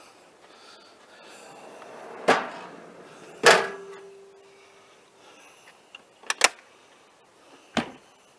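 A griddle tray riding on heavy-duty metal drawer slides: a rush of the slides running, then two hard clunks at the end of travel, the second leaving a brief metallic ring, followed by a few sharp clicks like a latch.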